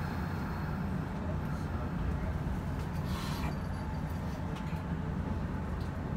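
Steady low hum and rumble of an electric commuter train heard from inside the driver's cab at a station, with a brief hiss about three seconds in.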